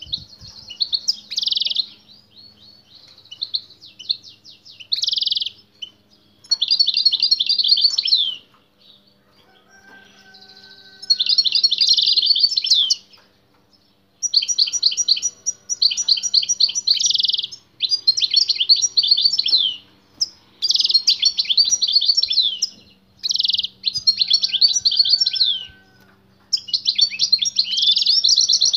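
Male European goldfinch singing vigorously in bursts of rapid, high twittering trills, each a second or two long with short pauses between them. This is the strong song a male gives when he hears a female singing nearby.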